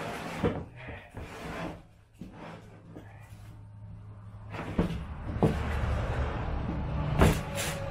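Cardboard packing rustling and scraping as a boxed poly garden dump cart is unpacked, with a low rumble and several knocks as the plastic tub is lifted out of the box, the loudest knock near the end.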